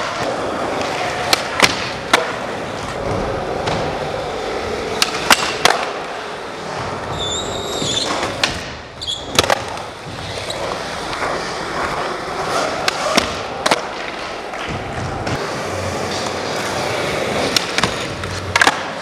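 Skateboard wheels rolling on a smooth concrete floor, broken by sharp clacks of the board popping and landing, several times over.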